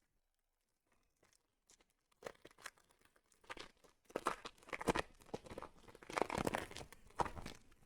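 Foil trading-card pack wrapper being torn open and crinkled by hand, starting about two seconds in and getting louder and busier from about four seconds in.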